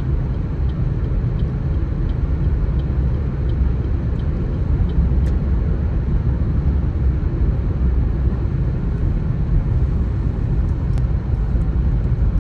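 Steady low rumble of a car driving, with faint light ticks at an even pace, about one and a half a second, for the first few seconds.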